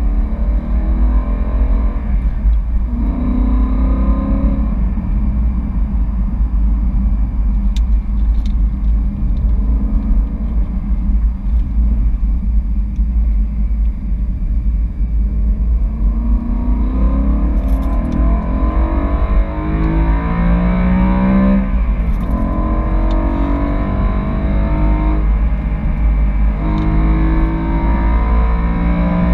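BMW E92 M3's 4.0-litre V8 pulling through the gears, its pitch rising and falling, with a sharp drop at a gear change about two-thirds of the way through. A steady low rumble of road and wind noise sits underneath, heard inside the cabin.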